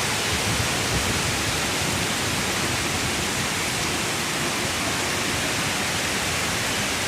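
Heavy rain falling, a steady, dense hiss with no letup.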